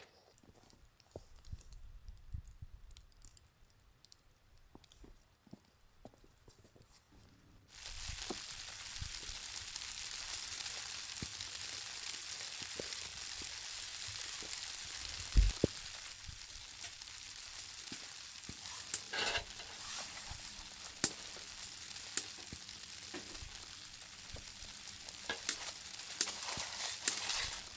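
Faint handling clicks, then about eight seconds in a sudden sizzle as food hits a hot pan, going on steadily with scattered pops and crackles. This is the sound of steak frying over the camp fire or stove.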